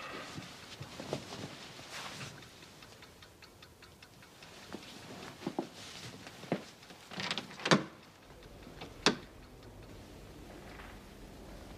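Quiet sounds of someone moving about stealthily: rustling and scattered soft knocks and clicks at irregular intervals. The loudest is a cluster of sharp clicks about seven to eight seconds in, with another sharp click about nine seconds in, as a door is handled.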